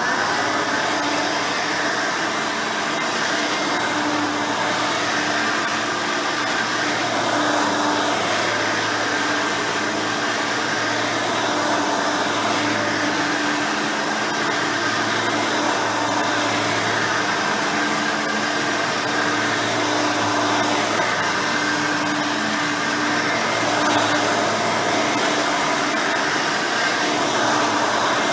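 Hoover Elite 5.0 upright vacuum cleaner running steadily. Its rebuilt original 5-amp motor spins a replacement 7-blade fan, and a stiff white-bristle brush roll turns while cleaning.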